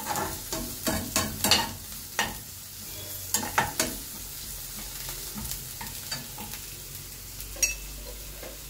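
Sliced onions and green chili frying in hot oil in a frying pan, sizzling steadily while a steel spoon stirs them, scraping and clicking against the pan: onions being sautéed until soft. The stirring clicks thin out about halfway through, with one more clink near the end.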